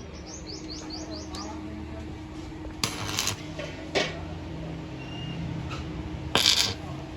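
A bird chirps a quick run of about eight short rising notes near the start over a steady low hum. Two short loud hissing bursts follow about three seconds apart, with a sharp click between them.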